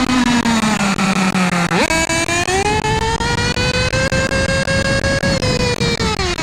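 Nitro engine of a Losi 8ight 1/8-scale buggy at close range. The revs drop for the first couple of seconds, then it opens up sharply with a quick rising whine, holds a steady high run at speed, and eases off near the end.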